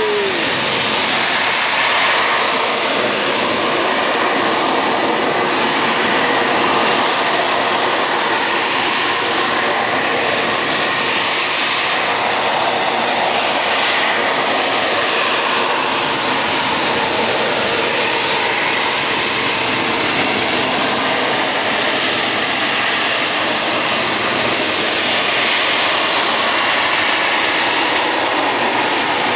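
Aircraft engine noise, steady and continuous, with faint tones that drift slowly up and down in pitch.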